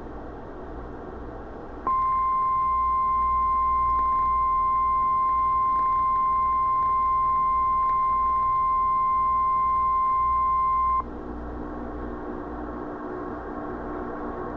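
Emergency Alert System attention tone: a single steady high-pitched tone, the NOAA Weather Radio warning tone that comes before a National Weather Service warning. It starts about two seconds in, holds for about nine seconds and cuts off suddenly, over the hiss and hum of a VHS recording.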